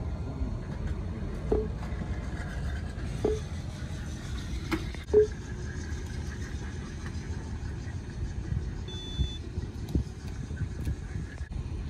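A ticket vending machine gives three short low beeps, a second and a half to two seconds apart, as its touchscreen is pressed. About three quarters of the way through, a brief higher beep sounds as a credit card goes into the reader. A steady low outdoor rumble runs underneath.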